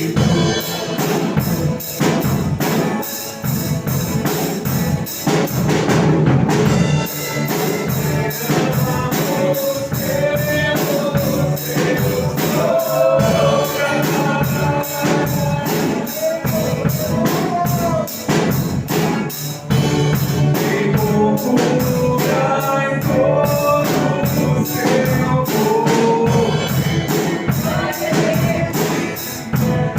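Live gospel praise music from a church band: voices singing a melody over a steady, evenly repeating high percussion beat and band accompaniment.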